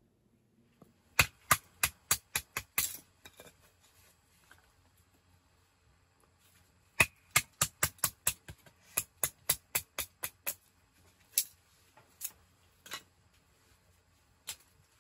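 Rapid, sharp knocks or strikes: a run of about seven, roughly three a second, starting about a second in; a longer run of about a dozen from about seven seconds in; then a few single knocks.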